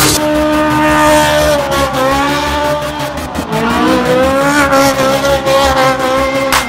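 Ferrari V8 sports car engine held at high revs while the car spins on loose dirt. The revs sag about two seconds in, then climb back and hold high toward the end.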